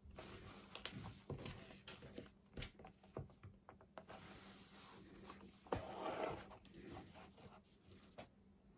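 Faint rustling and light clicks of hand-stitching leather, a needle pushed through pre-punched holes and waxed thread drawn through, with a longer rustle about six seconds in.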